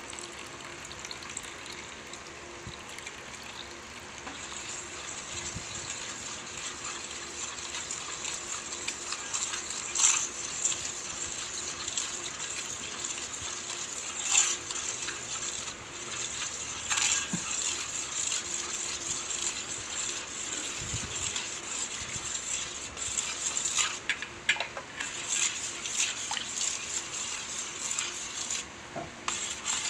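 Evaporated milk pouring from a can into a metal bowl of condensed milk, a steady liquid hiss, with a few sharp metallic clinks. Near the end a spoon stirs the milk in the bowl.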